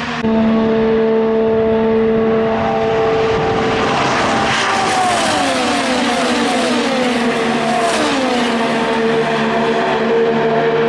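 IndyCar twin-turbo V6 engines at full throttle: a steady high engine note, with cars going by about four and eight seconds in, each one's pitch dropping as it passes.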